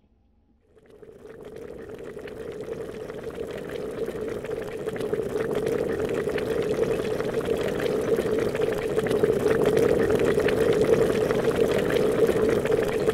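Water bubbling and churning, with a dense crackle of small bubbles. It starts about a second in and grows steadily louder.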